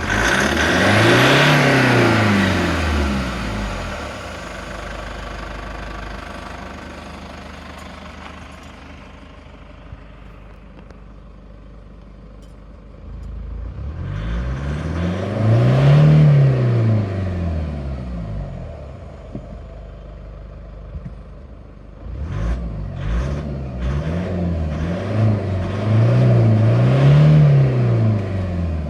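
Toyota HiAce KDH206V's turbo-diesel engine revved up and let fall back several times: once at the start, once about halfway and twice near the end, with idling in between. At idle it has the usual diesel clatter, and mixed in is an irregular jingling rattle like a bolt and washer being shaken, which the owner puts down to idle hunting from intake air and fuel fluctuating.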